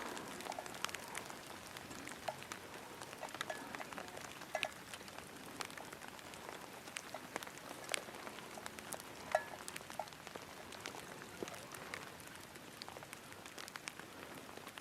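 Steady rain falling, with individual drops striking close by as scattered sharp ticks over a soft hiss.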